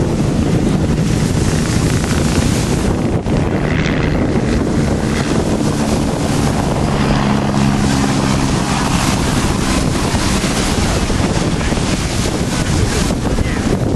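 Heavy wind noise on the microphone. Under it, a low engine drone swells in the middle and fades again.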